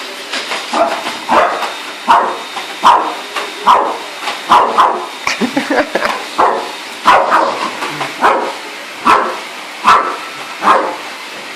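Dog barking repeatedly, about fifteen barks at roughly one every three-quarters of a second, at a running vacuum cleaner whose steady noise fills the gaps between barks.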